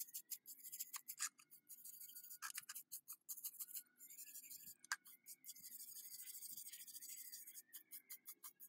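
Scraping and rubbing strokes of hand work on a rusty metal lantern, in quick irregular runs with short pauses and a few sharp clicks, then a steadier run in the second half.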